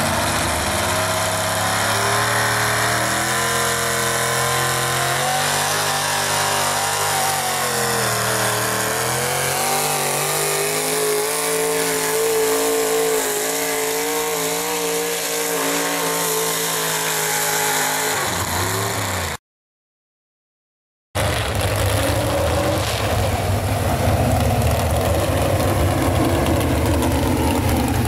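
Pulling pickup truck's engine running hard under heavy load as it drags a weight-transfer sled, its pitch climbing, dipping and climbing again, then winding down and cutting off about 19 seconds in. After a two-second silence, another modified pickup's engine runs rough and loud with a low rumble.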